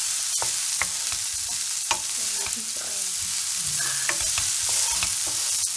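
Diced capsicum, onion and garlic sizzling in oil in a non-stick frying pan, stirred with a wooden spatula that knocks and scrapes against the pan in short clicks.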